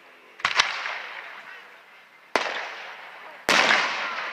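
Aerial fireworks shells bursting in a public display: a quick double bang about half a second in, another just past two seconds, and the loudest near three and a half seconds, each trailing off over a second or so.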